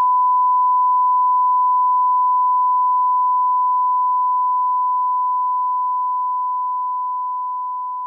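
Test-signal reference tone played with SMPTE colour bars: a single steady high pitch of about 1 kHz, unchanging in pitch and slowly fading in level.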